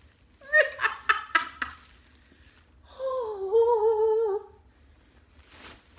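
A woman humming: a few short notes, then one longer wavering note. A brief rustle follows near the end.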